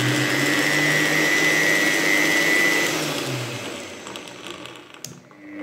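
Steinhaus Pro-MX1400X 1400 W paint and mortar mixer motor running unloaded in first gear at its lowest speed setting, a steady whine. About three seconds in it is let go and winds down, with a click near the end.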